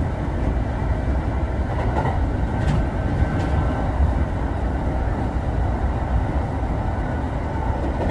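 Train running: a steady low noise at an even level throughout.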